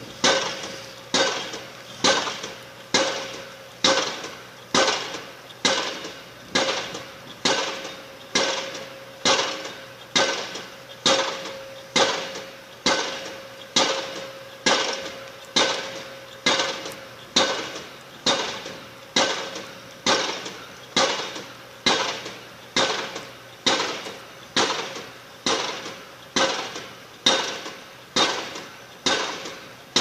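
Piling rig's hammer driving a pile into the ground: sharp blows at an even beat of a little more than one a second, each one ringing briefly.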